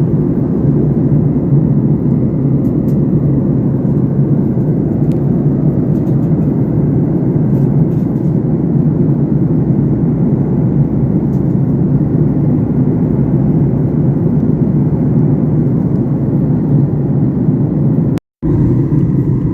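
Steady low rumble of a moving vehicle, broken by a brief gap of silence near the end.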